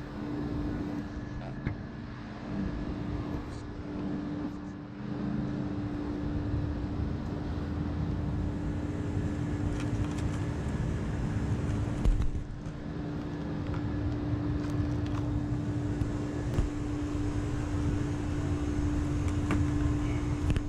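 A car running: a steady low rumble with a constant hum, and a single knock about twelve seconds in.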